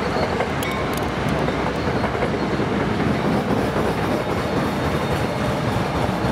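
New Jersey Transit push-pull commuter train of single-level coaches rolling steadily past, with a few faint wheel clicks about a second in. Its ALP-45DP locomotive, pushing at the rear, comes by near the end.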